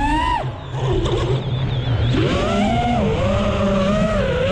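Five-inch FPV quadcopter's four brushless motors (AOKFLY RV2205 2500KV) spinning three-blade props, whining with a pitch that swings up and down with throttle. The pitch falls and the sound drops off about half a second in, then climbs sharply again at about two seconds in, as throttle is cut and punched back.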